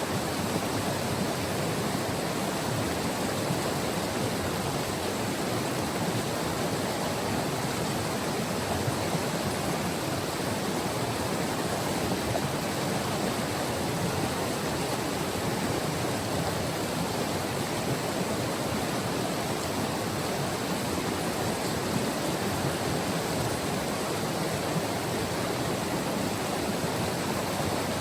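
White River's flowing water: a steady, even rush of a river current that does not change.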